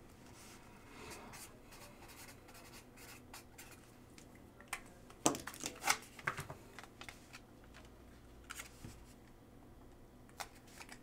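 Marker writing on a pink sticky note, faint scratching strokes, then a few sharp clicks and paper rustles about halfway through as the note is handled.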